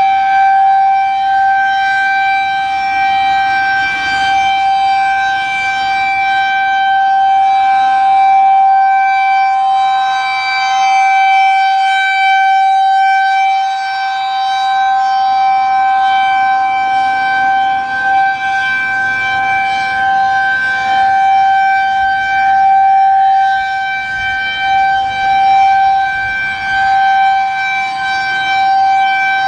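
Federal Signal 2001-130 rotating outdoor warning siren sounding the steady Full Alert tone, a loud single held pitch that swells and fades every few seconds as the rotating horn sweeps past.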